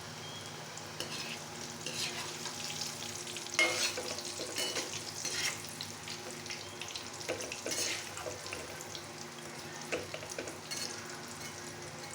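Food sizzling in a hot pan while a spoon or spatula stirs and scrapes through it in irregular strokes, the loudest scrape coming at about four seconds in.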